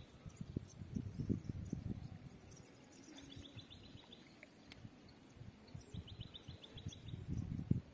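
Wind buffeting the microphone in uneven gusts. A short, high, rapidly pulsed trill from a small wild creature sounds twice, about three seconds in and again about six seconds in.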